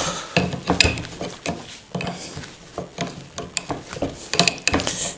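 Wrench tightening a lock nut on a scooter's front shock absorber mounting: irregular metal clicks and clinks of the tool on the nut.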